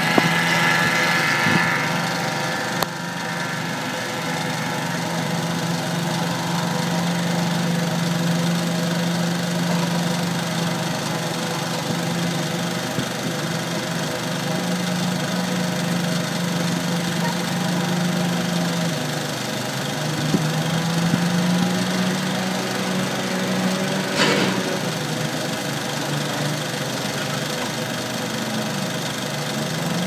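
An engine running steadily, its pitch dipping and rising slightly at times, with a short sharp sound about 24 seconds in.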